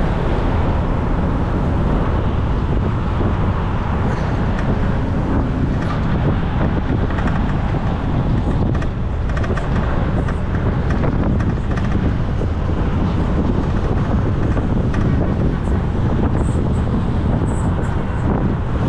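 Steady city street traffic: the continuous rumble of vehicle engines and tyres.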